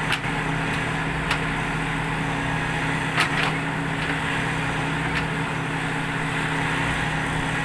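Heavy machine's engine running steadily at an even pitch, with four short sharp clicks or knocks, the loudest about three seconds in.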